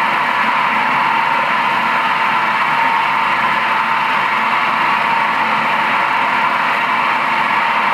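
Nagema bowl cutter running at speed, its rotating bowl carrying sausage meat through the spinning knives to chop it into a fine batter. It makes a steady, loud, even whir with no change in pitch.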